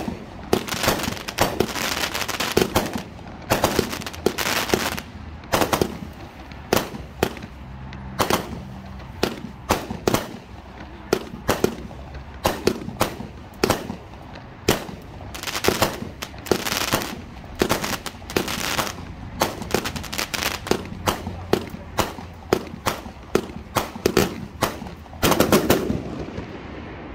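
A 200-gram consumer fireworks cake firing: an irregular string of sharp pops and bangs from its shots launching and bursting overhead, often several in quick succession, until it stops near the end.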